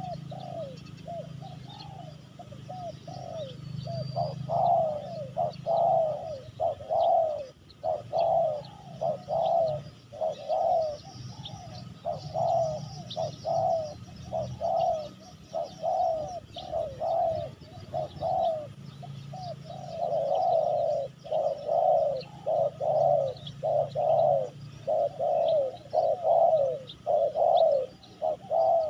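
Spotted doves cooing in a long run of short, low coos, about two a second, broken by brief pauses, with faint chirps of other birds above them.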